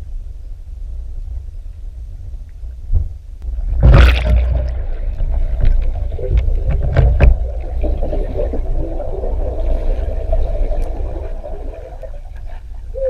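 Underwater sound through a submerged action camera's housing: a steady low rumble with scattered clicks, a loud rush of water about four seconds in, and a wavering mid-pitched gurgle through the second half.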